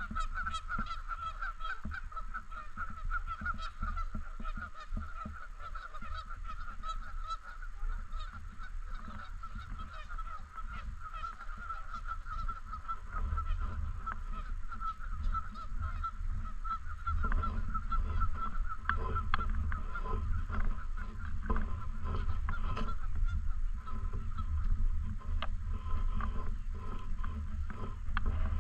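A flock of Canada geese honking continuously, many calls overlapping in a rapid, steady chorus. A low rumble runs underneath and grows louder from about halfway through.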